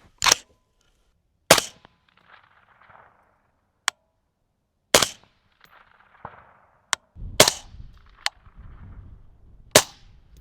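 Suppressed Recce-style AR rifle fired five times at uneven intervals, each a sharp report with a short tail. Between the shots come a few thinner, sharper ticks, one with a brief ring.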